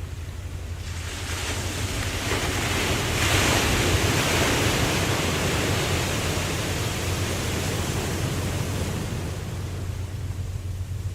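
Ocean waves: a wave breaks and its hiss swells and then washes away over several seconds, over a steady low rumble of surf.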